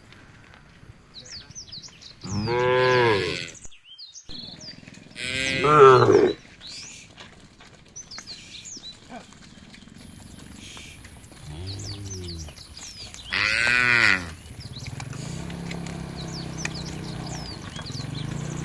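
Cows mooing: three loud moos, each about a second long and rising then falling in pitch, with a fainter moo just before the last.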